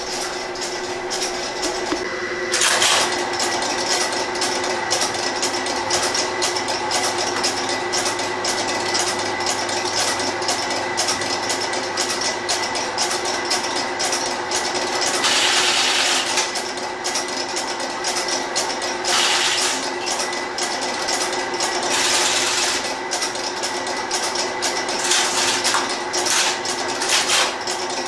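Electromechanical telephone exchange equipment at work, including a motor-driven cam interrupter: rapid, continuous clicking of relay and cam contact springs over a steady hum, with a few louder bursts of chatter.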